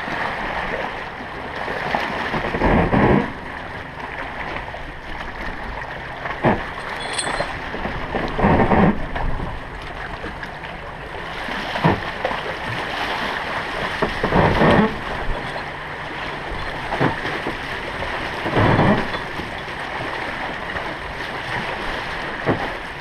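Small waves washing onto a rocky shore, a steady rush of water that swells every few seconds, with a few short sharp knocks.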